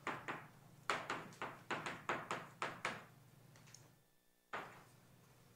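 Chalk writing on a blackboard: a quick run of about ten short, sharp chalk strokes and taps over the first three seconds, then a pause and one more stroke about four and a half seconds in.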